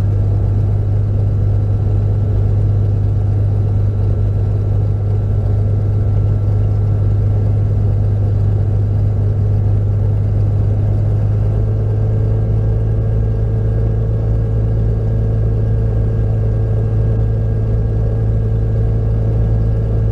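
Navion light aircraft's piston engine idling steadily with a strong low hum, heard from the cockpit, its propeller turning slowly. A faint higher tone joins in about halfway through.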